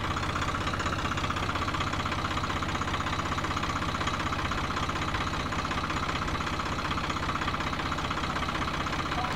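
Swaraj 744 FE tractor's three-cylinder diesel engine running steadily at an unchanging speed.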